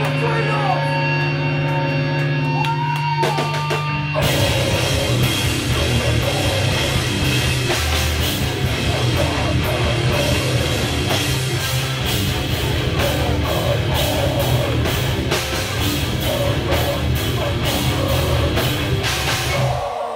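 Heavy metal band playing live: distorted electric guitars hold a ringing chord, then about four seconds in the full band crashes in with fast, dense drums and guitars. The song stops suddenly near the end.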